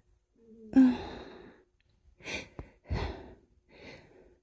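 A woman stifling sneezes: a loud, breathy, held-back burst with a short voiced catch about a second in, then three shorter, quieter bursts of breath.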